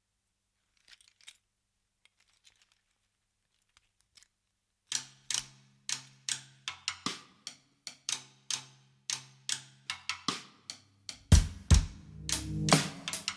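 Drum kit: first a few faint scattered taps, then from about five seconds in a run of sharp dry clicking strokes, two or three a second, over a low steady tone. Near the end the kit comes in loud, with heavy kick-drum hits and cymbals.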